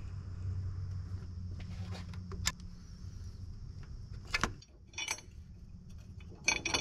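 A ratchet working a bolt loose, a few sharp clicks and knocks, then the thin sheet-metal exhaust heat shield clinking and rattling near the end as it is handled. A low hum underlies the first two and a half seconds.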